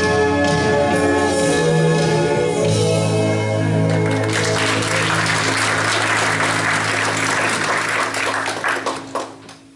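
A gospel song ends: a woman's singing over backing music, whose final chord is held. Then the church congregation applauds from about four and a half seconds in, and the clapping fades out near the end.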